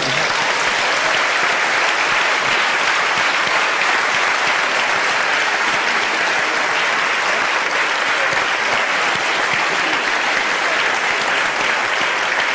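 Large audience applauding: dense, steady clapping that holds without a break.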